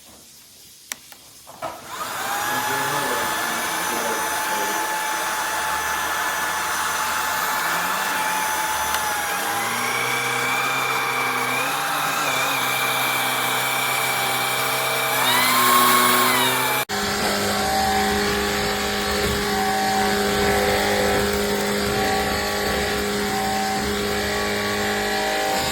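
A Shark cordless stick vacuum is switched on after a couple of clicks and runs with a steady whine, its pitch shifting partway through. Its sound cuts off abruptly and gives way to a different steady machine hum.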